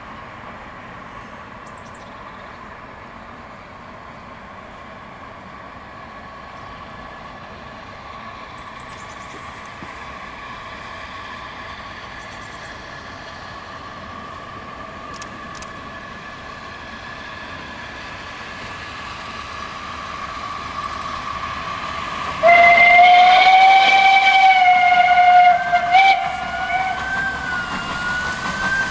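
SNCF 141 R 1126 steam locomotive approaching with its train, its running noise growing steadily louder. About two-thirds of the way in, its steam whistle blows one long, loud blast of about three seconds, then carries on more faintly with a wavering pitch.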